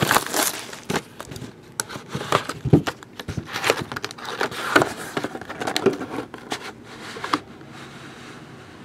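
Crinkling and rustling of packaging as signed 8x10 photographs are handled, with many short scattered taps and clicks. It settles down about seven seconds in.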